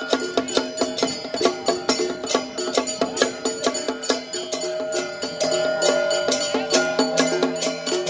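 Traditional temple-festival music: quick wood-block and percussion strikes, about four to five a second, under a sustained wind-instrument melody that moves to a higher held note about five seconds in.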